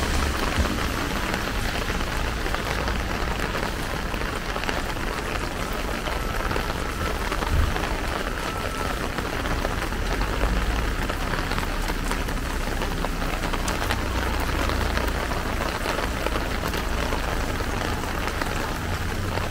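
Steady heavy rain pattering on a plastic umbrella held overhead, a dense even patter, with a low rumble that swells and fades underneath.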